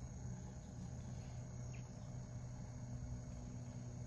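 Faint room tone with no program sound: a steady low electrical hum and a thin, steady high-pitched whine.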